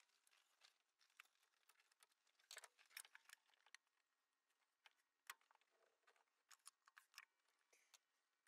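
Very faint, scattered light clicks and taps of hands working the top cover off a Weber DGEV carburettor, with the sharpest knocks about a third of the way in and once more just past the middle.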